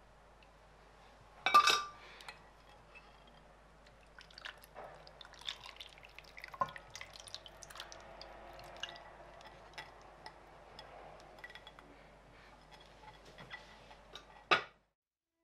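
Kitchen handling sounds from food preparation: a ringing clink of something hard against a dish about one and a half seconds in, then scattered small clicks and faint liquid sounds, ending with a sharp knock near the end.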